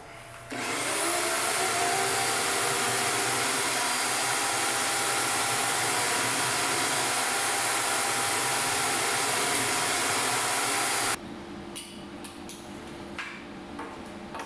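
Eastwood Elite 60 plasma cutter's arc firing and cutting Hardox 450 steel plate: a loud, steady hiss of the air-plasma jet that starts suddenly about half a second in, runs for about ten seconds and cuts off abruptly. A quieter steady hum with a few light clicks follows.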